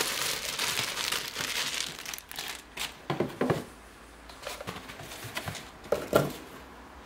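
Thin plastic bag crinkling and rustling as it is pulled off a chrome blender base, dense for the first two seconds or so. Then a few short, dull handling knocks follow, the loudest near the end.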